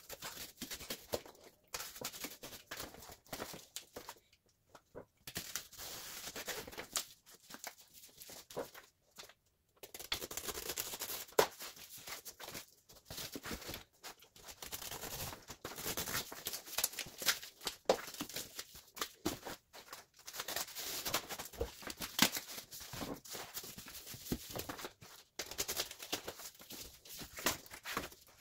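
A razor knife cutting through cardboard in irregular scraping strokes, with brief pauses. Cardboard offcuts are handled and pulled away.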